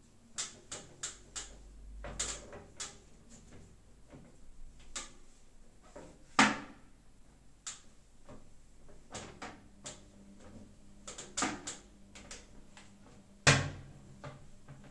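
Toilet being cleaned by hand with a cloth: scattered light knocks and clicks against the bowl and seat, with two sharp, louder knocks about six seconds in and near the end, the last as the toilet seat and lid are lowered onto the bowl.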